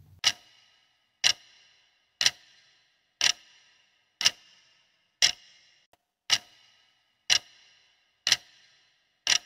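Clock-style ticking sound effect counting down a quiz timer: ten sharp ticks, one a second, each with a brief ringing tail.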